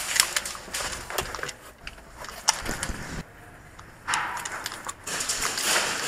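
An airsoft player moving with a rifle: scattered sharp clicks and knocks over rustling noise, with a short lull about three seconds in and louder rustling after it.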